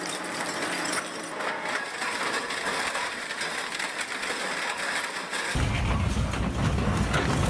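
Industrial shredder crushing and tearing scrap metal, a dense crackling and clinking of breaking material. About five and a half seconds in, a deep machine rumble comes in abruptly.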